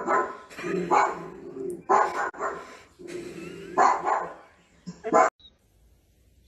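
Recorded dog barking played through a small smart speaker: a run of about eight barks that stops about five seconds in.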